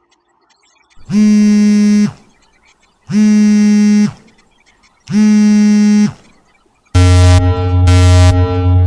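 Three identical electronic buzzer tones, each about a second long and two seconds apart, followed about seven seconds in by a lower, longer electronic tone that breaks off and comes back.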